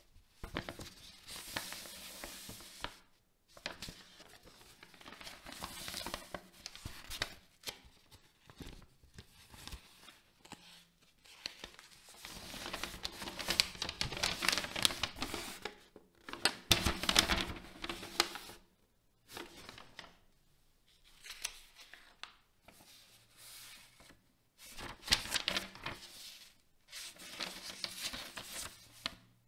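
Paper and thin plastic packaging crinkling and tearing as the grip tape sheets and user manual of a gaming-mouse box are unwrapped and handled. The sound comes in repeated bursts of a few seconds, with short pauses between them.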